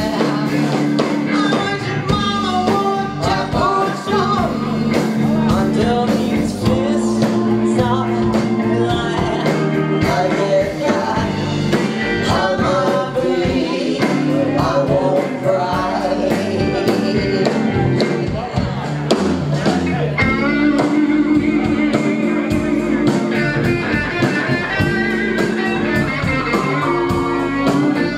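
Live rock band playing, with electric guitars and drums and a woman singing lead.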